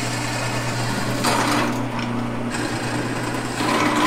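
Drill press motor running with a steady hum while the bit cuts into metal, with two louder stretches of cutting, about a second in and again near the end.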